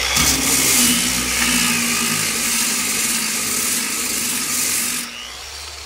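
Bauer electric dual-action sander with 36-grit paper, its orbital bearing welded so the pad runs eccentric without free orbit, stripping paint off a car's steel body panel: steady motor whine under a loud, coarse abrasive hiss. About five seconds in the sanding noise cuts off and the motor winds down.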